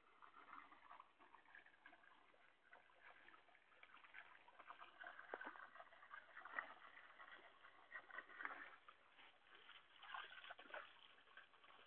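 Faint water sloshing and trickling against a canoe, in small irregular splashes.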